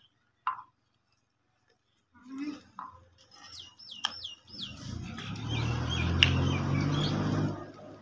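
Birds chirping a quick run of high, curving notes. A brief sharp sound comes about half a second in, and a low steady rumble from about the middle lasts roughly three seconds and is the loudest part.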